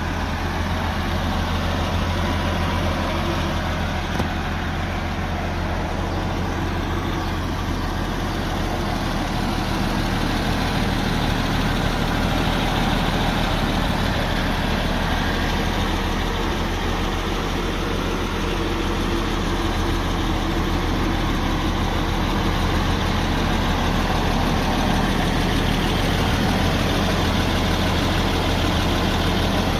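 A 1951 Oliver 77 tractor's six-cylinder engine idling steadily through its muffler, a little louder after about ten seconds.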